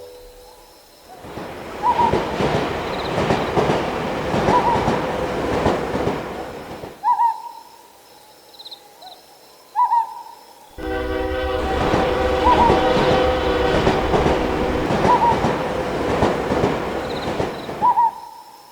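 Two trains passing one after the other, each a stretch of rolling rumble and clatter lasting about six to seven seconds. The second opens with a horn blast. A short high chirp repeats about every second and a half throughout.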